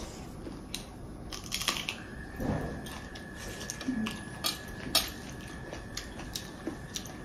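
Close-up eating sounds: scattered soft clicks and crunches of chewing, and fingers working rice on steel plates. A faint steady high tone comes in about two seconds in.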